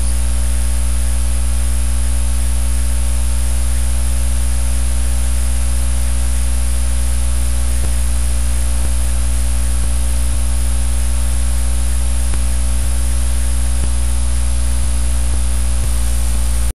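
Loud steady electrical mains hum and buzz with hiss, with a few faint ticks in the second half; it cuts off suddenly near the end.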